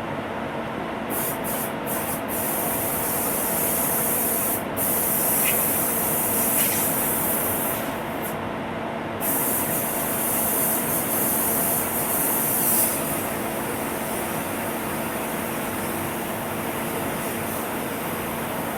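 Air spray gun hissing in several long passes that start and stop, over a steady machine hum with fixed tones; the spraying stops near the end.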